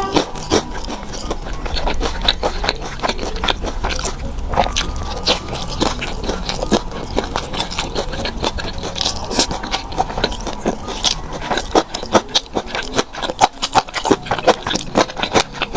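Close-miked eating: chewing and biting with a dense run of crisp clicks, crackles and scrapes.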